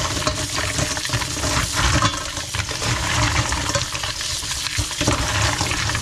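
Freshly gathered clams being washed by hand in a basin of water, with the water sloshing and the shells clattering and scraping against each other.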